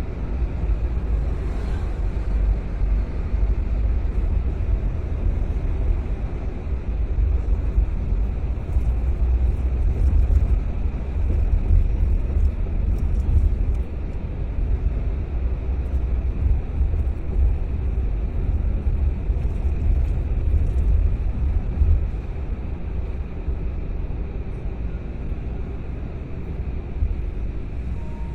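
Steady low rumble of a car driving, its road and engine noise swelling a little in the middle and easing slightly near the end.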